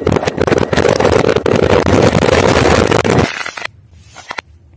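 A 1000-wala firecracker string going off: a loud, rapid, unbroken chatter of bangs that stops abruptly about three seconds in. A few single pops follow, then it fades to faint.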